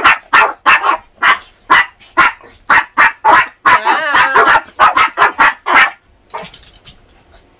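Small Pomeranian-type dog barking excitedly in a fast run of short, sharp yaps, about two to three a second, stopping about six seconds in.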